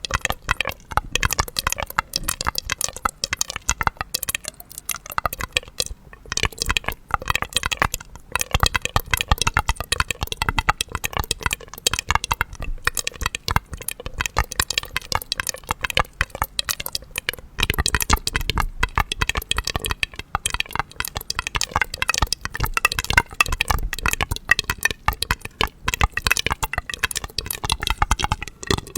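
Dense, irregular crackling and clicking close to the microphone, without pause.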